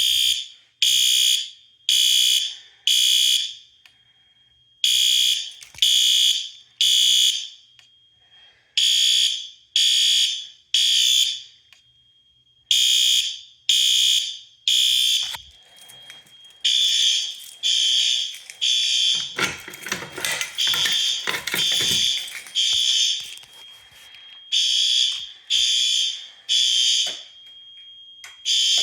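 Fire alarm horns sounding the temporal-3 evacuation pattern, three short high beeps then a pause, over and over: the system is in alarm after a manual pull station was pulled. From about halfway, more horns sound out of step with the first, and for a few seconds a harsher buzzing sound joins in.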